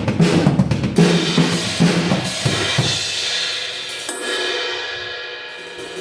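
Mosico Modern Series 19-inch crash cymbal played with a drum kit: drum and cymbal hits for about three seconds. Then the drums stop and the crash rings out, slowly decaying.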